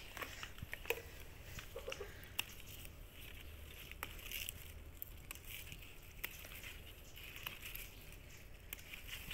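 Leaves and stems of an amaranth plant rustling as a hand grasps and handles them: faint rustling with scattered small clicks and snaps.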